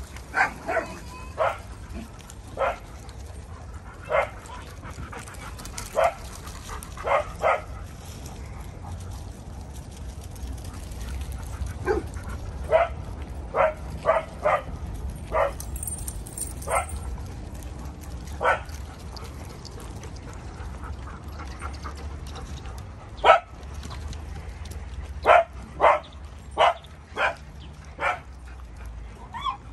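Dogs barking in short single barks at irregular intervals. There is a lull of several seconds early in the middle, and a quicker run of barks near the end.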